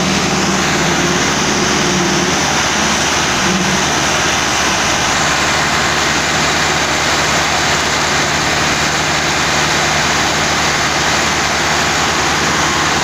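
Massey Ferguson 385 and 375 tractors' diesel engines running flat out under heavy load, pulling against each other, belching black smoke. The sound is loud and steady throughout.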